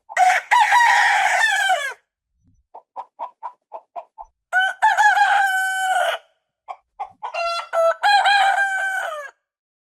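Rooster crowing three times, about every three seconds. Each crow is a long call with a drawn-out ending, and a quick run of short clucks leads into the second and third crows.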